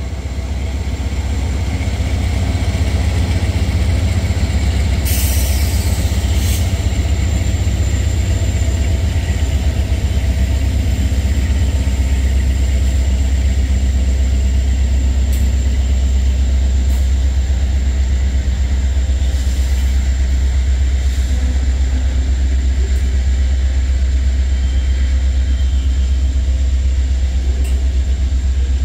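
Long Norfolk Southern manifest freight train of covered hoppers and tank cars rolling slowly past: a loud, steady low rumble of wheels on the rails, with a few short sharp clanks.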